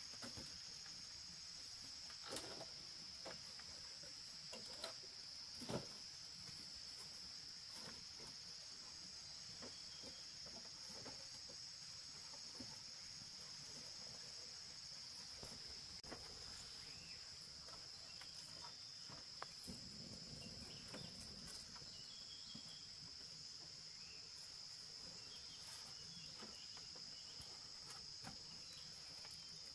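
Steady chorus of insects trilling, a continuous high-pitched drone, with a few sharp clicks or knocks in the first several seconds.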